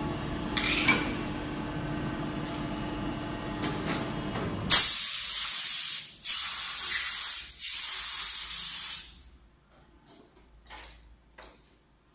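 Steady hum of a multi-station rotary hydraulic brake-pad press with light clicks. About five seconds in, compressed air hisses loudly in three long blasts, each over a second long.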